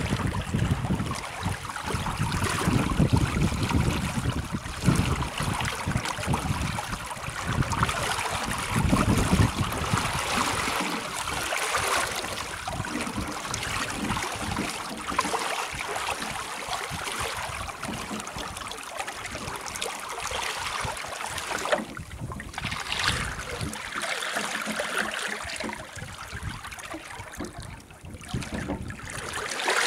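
Water rushing and splashing past a sailboat's stern under way, a steady hiss, with wind buffeting the microphone in gusts during roughly the first ten seconds.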